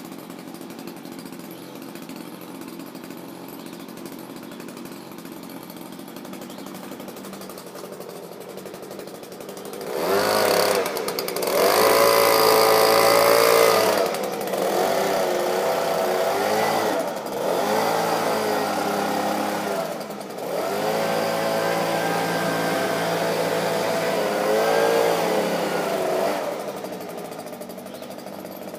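Stihl SH86 leaf blower's 27.2 cc two-stroke engine idling for about ten seconds, then revved up with a rising whine and a rush of air. It is throttled up and down several times and drops back toward idle near the end.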